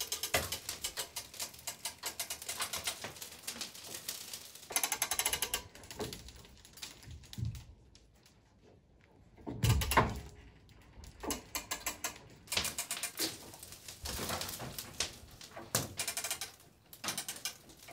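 Ratcheting clicks of a hand-cranked material-lift winch being wound, in several fast runs as it raises a steel beam against a stone lintel, with one dull thump about ten seconds in.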